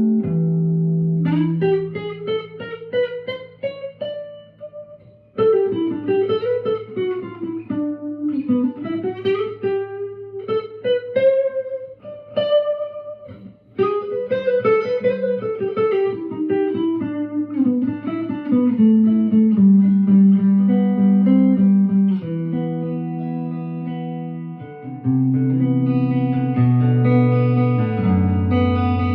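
1958 Guild Aristocrat hollow-body electric guitar being played: quick single-note runs that climb and fall, giving way to held notes and chords, with low bass notes stepping down near the end.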